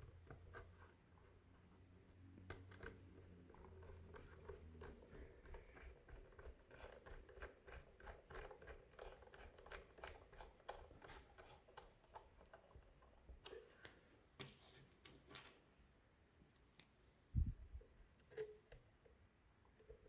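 Faint small clicks and scraping of a hex screwdriver turning screws into a toy ghost trap's wheel mount, with one low thump near the end.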